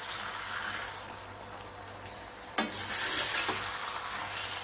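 Egg masala sizzling in a stainless steel pan on a low flame while a steel spoon scrapes under the eggs to loosen them from the bottom. A sharp knock of the spoon against the pan comes a little past halfway, with a lighter one about a second later.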